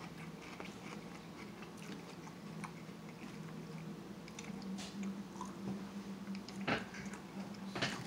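Close-miked chewing and biting of a seafood salad, with wet, crunchy mouth sounds and small clicks, and two sharper clicks near the end. A steady low hum runs underneath.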